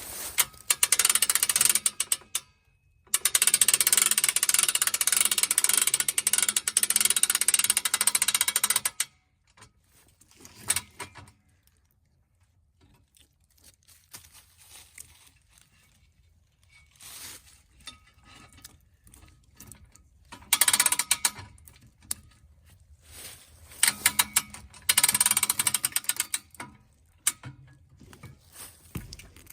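Rapid mechanical ratcheting in several runs, the longest about six seconds, as a log is secured to an ATV log hitch.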